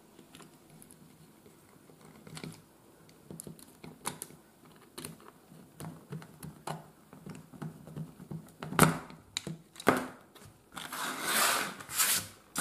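Small screwdriver working a brass screw terminal on a plastic extension board, with scattered light clicks and scrapes. There are two sharper knocks about nine and ten seconds in, then rustling handling noise near the end.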